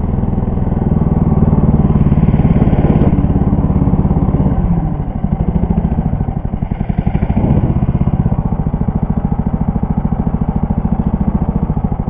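Engine of a Lider 3 motorised snow tow running under load. It runs hard for the first four and a half seconds, then eases to a steady, pulsing run.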